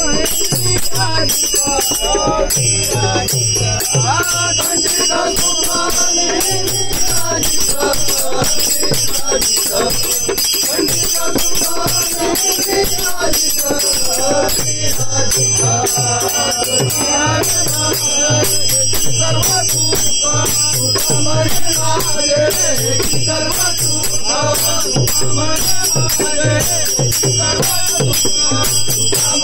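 Devotional bhajan sung by men, accompanied by a hand drum and a pair of brass taal cymbals. The drum strokes beat out a steady rhythm under the sung melody, and the cymbals ring continuously on top.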